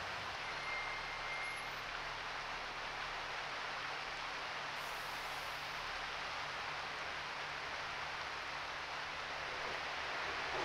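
Steady vehicle noise: an even hiss with a faint low hum underneath.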